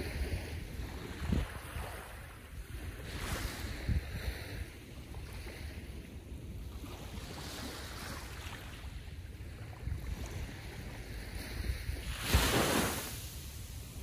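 Small ocean waves lapping onto the beach on a calm sea, several soft washes that swell and fade, the loudest about twelve seconds in. Low wind rumble and a few buffets on the microphone underneath.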